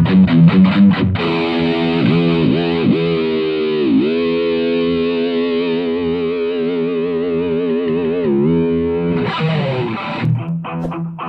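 Electric guitar played through a handmade distortion pedal with a thick, saturated tone. A quick run of picked notes gives way to bent notes and one long sustained note with vibrato, and a new passage starts near the end.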